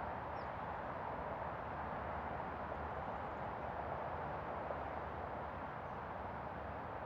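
Distant city traffic: a steady wash of car and tyre noise with a low rumble beneath it, heard from under the Bolte Bridge.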